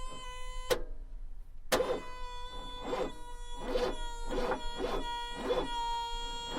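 Haval F7 making a repeating 'kat-kat-kat' knocking on start-up: sharp knocks about twice a second over a steady whine, a sound whose cause the owner doesn't know.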